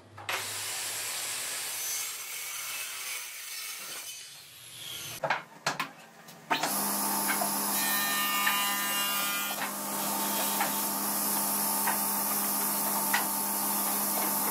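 A handheld circular saw cuts along a wooden plank, fading out about four seconds in. A few sharp knocks follow, then a sliding table panel saw runs with a steady hum.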